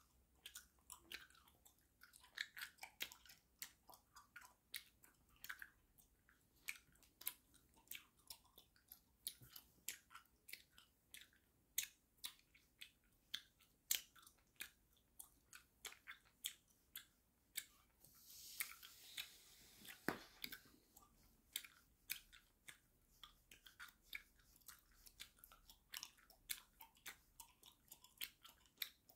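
Gum being chewed with the mouth open, close to the microphone: wet smacking clicks, a few each second, in an uneven rhythm. A soft breathy hiss lasts about two seconds around two-thirds of the way through.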